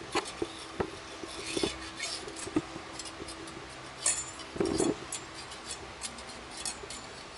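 Light metal clicks and scrapes as a steel straight edge and a feeler gauge are placed and slid across the machined deck of an RB25DET cylinder head, checking it for warping; a duller knock comes about four and a half seconds in.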